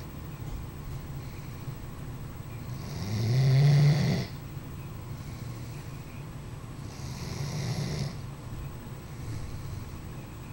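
Sleeping Doberman snoring: a loud snore about three seconds in that stops abruptly, then a softer one a few seconds later, over a low rumble of breathing.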